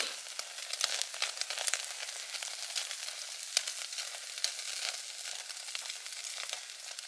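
Thick beef loin steaks sizzling on a wire grill over a charcoal fire: a steady hiss full of small pops and crackles.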